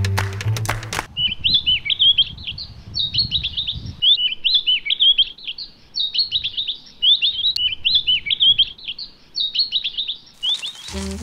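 A songbird singing short, quick chirping phrases over and over. Music breaks off about a second in and comes back near the end.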